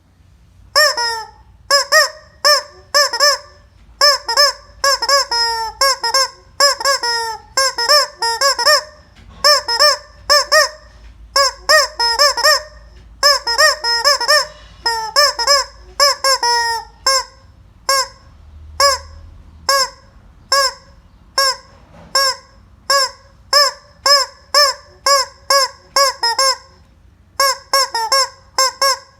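A noise-making chicken squawking loudly over and over, about one to two honking calls a second, in runs broken by short pauses.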